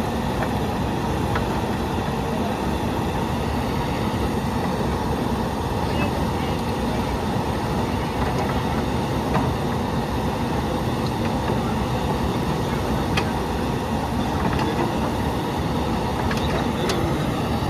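Backhoe loader's diesel engine running steadily, with a few faint knocks here and there.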